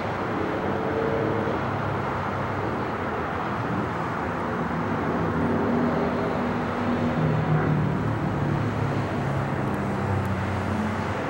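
Steady rumble of a twin-engine Boeing 777 on final approach with its landing gear down, mixed with road traffic noise, swelling slightly about seven seconds in as the jet comes closer.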